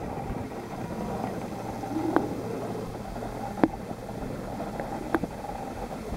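Underwater sound in a pool, heard through a submerged microphone: a steady low hum with sharp clicks about every one and a half seconds.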